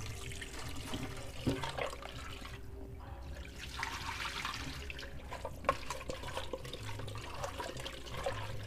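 Kitchen tap running into a steel sink while an aluminium cooking pot is rinsed by hand, its water poured out into the sink, with a couple of sharp knocks.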